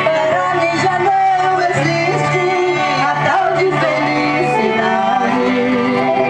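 Singing with guitar accompaniment, played live and amplified from a sound truck's loudspeakers.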